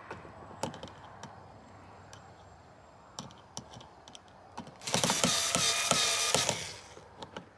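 Scattered clicks and knocks of a light fitting being handled against the wall, then a power drill running in one loud whirring burst of about a second and a half, about five seconds in.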